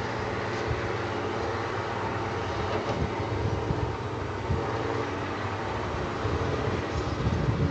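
SDLG 6225 crawler excavator's diesel engine running steadily while the machine digs and swings, with a few uneven surges in level near the end.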